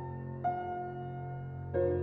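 Slow, gentle background piano music: two soft notes struck, about half a second in and near the end, over a held low chord.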